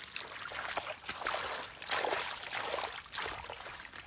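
Hands squelching and scooping through wet mud and shallow water, a run of irregular wet scrapes and splashes, busiest in the middle.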